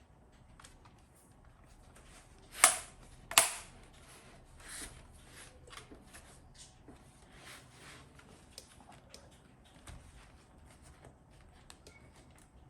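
Two sharp clicks about two and a half and three and a half seconds in, then a run of light clicks and taps: small plastic and metal laptop parts being handled and snapped into place while an SSD is fitted in place of the hard disk.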